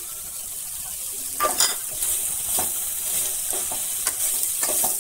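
Spoon stirring and scraping a vegetable mix in a pan on a lit stove, over a light, steady sizzle of frying. There is an uneven series of scrapes and knocks against the pan, the loudest about a second and a half in.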